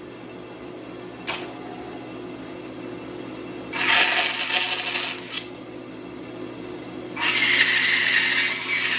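Bandsaw running with a steady hum, its blade cutting through a wooden block in two passes, a short one in the middle and a longer one near the end, with a single click just after a second in.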